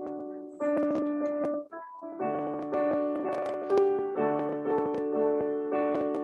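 Piano playing the introduction to a hymn: a run of sustained chords, each new chord struck about every second.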